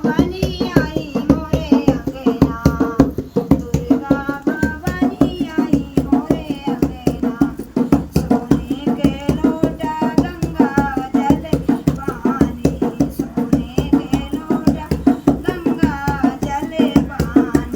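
A woman singing a Navratri devi geet, a Hindu devotional folk song to the goddess, over a steady, fast drum beat.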